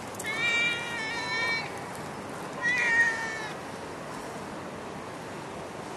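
A domestic cat meowing twice: a long meow of about a second and a half, then a shorter one about two and a half seconds in, over a steady hiss.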